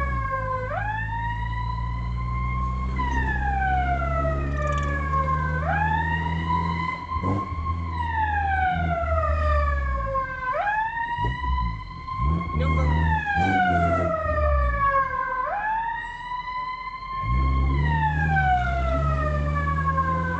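Fire-response vehicle's siren wailing: each cycle jumps up quickly in pitch, then slides slowly down, repeating about every five seconds, over the steady low drone of the vehicle's engine.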